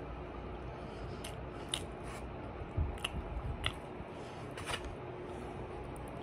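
A person chewing food close to the microphone: a handful of short, sharp, wet mouth clicks and smacks, spaced irregularly.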